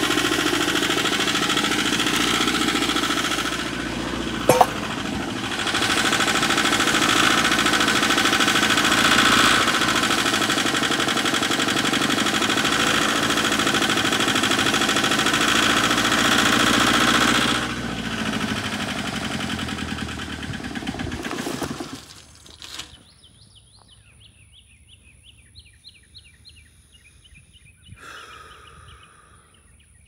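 Perkins diesel engine of a Wacker Neuson ST45 skid steer in a runaway, running at high speed on its own oil and not stopping with the key. A single sharp click comes in the first few seconds. The engine sound falls off and dies out about three-quarters of the way through, leaving birds singing.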